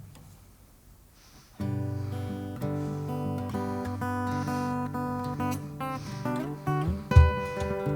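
Acoustic guitar begins an instrumental introduction about a second and a half in, playing ringing plucked chords. Strong low beats join near the end.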